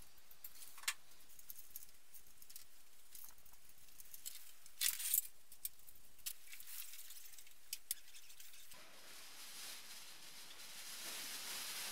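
Light metallic clinks and jangles of an engine hoist's chain and hook, a few scattered clinks with the loudest cluster about halfway through. Near the end comes a soft rustling hiss as a fabric lifting strap is pulled off the engine.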